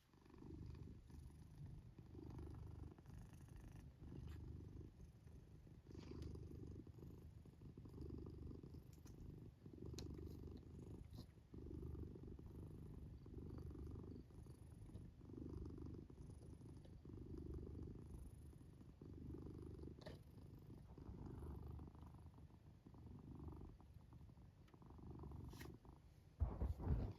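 A domestic cat purring in its sleep: a faint, low rumble that swells and fades with each breath, about every two seconds. Near the end there is a brief, louder low thump.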